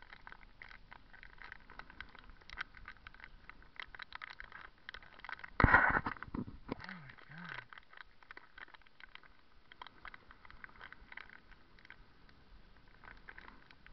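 Snack packet crackling and rustling as it is twisted and pulled at, with one loud burst of rustling about six seconds in, followed by two short grunts.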